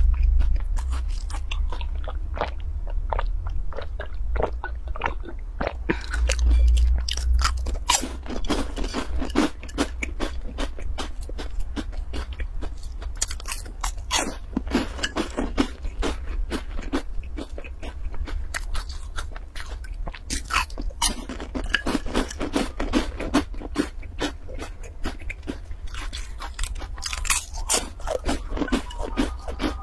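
Close-miked crunching and chewing of crisp oat chocolate pastry cubes: runs of sharp crunches as each bite is chewed, with short gaps between bites, over a low steady hum.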